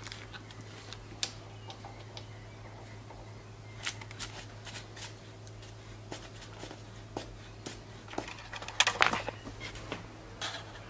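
Light metallic clicks and knocks from a mini metal lathe being handled by hand, its carriage and leadscrew handwheels turned; a louder cluster of rattling knocks comes about nine seconds in. A low steady hum runs underneath.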